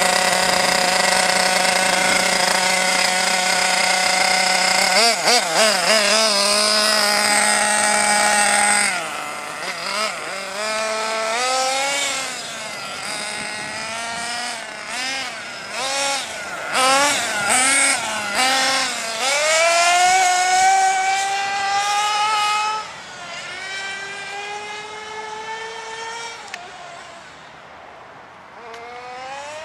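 Reely Overheater RC monster truck's nitro engine, idling steadily at first, then blipped with quick wavering revs, then driven off, its pitch rising and falling again and again with the throttle. It grows quieter in the second half as the truck runs farther away.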